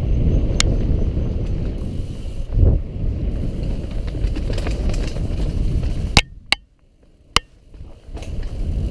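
Mountain bike descending a dirt singletrack: a steady rumble of tyres on dirt and wind, with the rattling clicks of the bike's chain and parts. About six seconds in there is a sharp click, then the rumble cuts out for nearly two seconds with two more isolated clicks before it comes back.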